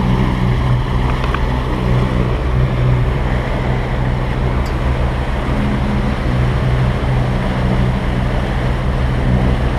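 Sailing catamaran motoring along: its engine gives a steady low drone, over the rushing wash of water and wind.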